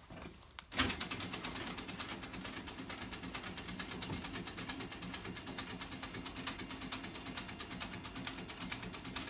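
A hospital bed being lowered by its electric motor: a click about a second in, then a steady mechanical whirr with a fast, even ticking.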